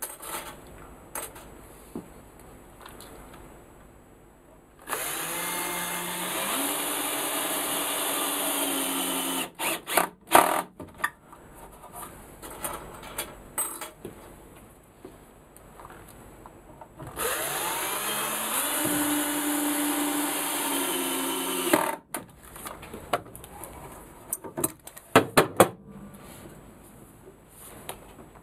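Power drill run twice, each time for about four to five seconds, its motor pitch rising as it spins up, working into a softwood rail; sharp clicks and knocks of handling between and after the runs.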